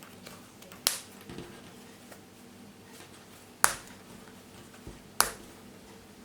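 Metal snap fasteners on a fabric pillow case clicking as they snap together, three sharp clicks a couple of seconds apart.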